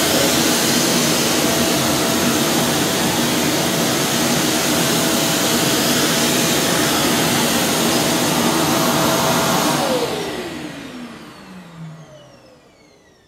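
Kärcher WD 5 wet-and-dry vacuum cleaner running steadily at full power. It is switched off about ten seconds in, and its motor winds down with a falling whine.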